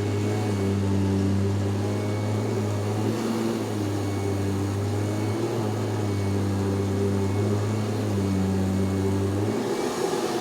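Kirby vacuum cleaner motor running steadily, its pitch dipping briefly a few times, most clearly near the end.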